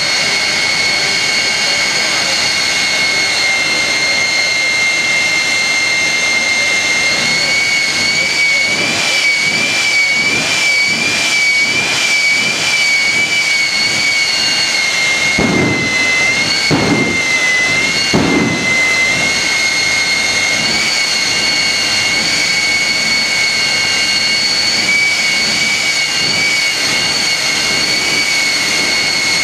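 Jet engine of a jet-powered Kenworth semi truck running with a steady high whine that wavers in pitch midway, broken by three loud bursts as flame shoots from its stacks, one roughly every second and a half.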